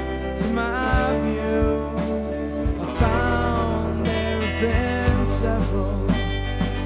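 Four-piece band playing live: a male lead vocal sung over guitars, electric bass and drums, with regular drum hits under held bass notes.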